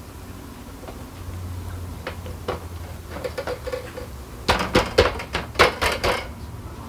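Hard plastic shoe-rack shelf clicking and knocking against the rack's steel tubes as it is handled and pressed into place, with a few light clicks and then a quick run of loud knocks and rattles about four and a half seconds in.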